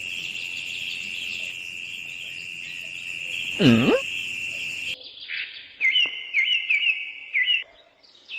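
Steady high insect trill, like crickets, with one loud swoop that dips and rises again about three and a half seconds in. After an abrupt change, a run of about five short rising bird chirps.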